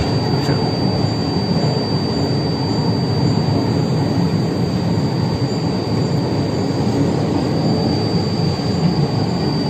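Steady rumble of a train on the adjacent track, with a constant high-pitched whine over it.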